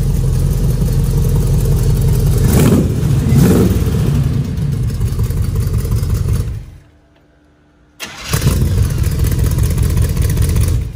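1923 T-bucket hot rod's engine running loud, revved twice about three seconds in. About seven seconds in it shuts off, and after a second or so of quiet it fires again abruptly and keeps running.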